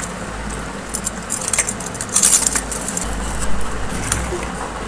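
Pringles potato crisps being shaken and tipped out of their cardboard tube onto a plate: a scattered run of light, crisp clicks and rattles that come in short clusters.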